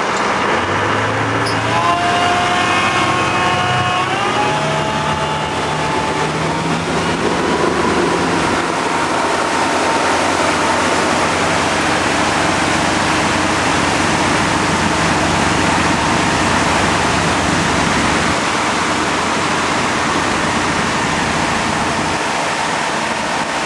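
Motorboat engine throttling up, its pitch rising over the first few seconds. A steady, loud rushing of wind on the microphone then takes over as the parasail climbs behind the boat.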